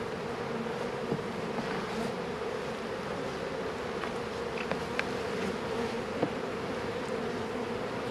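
Honeybees buzzing in a steady hum over a hive opened for frame inspection, with a few faint clicks.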